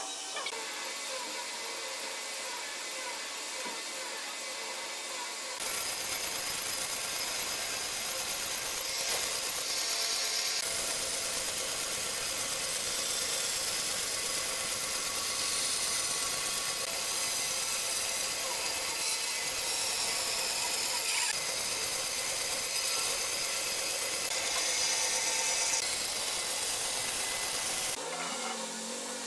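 Woodworking power machinery running steadily on hardwood, with a high hiss. It gets louder about six seconds in and drops back near the end.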